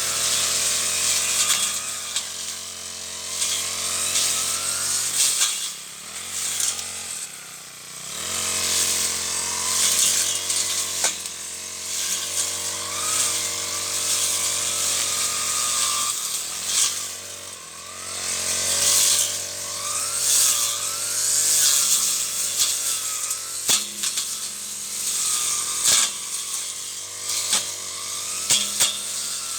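Brush cutter (grass-cutting machine) engine running at high throttle while cutting weeds, with a steady high hiss from the cutting head in the grass. It eases off twice briefly and revs back up.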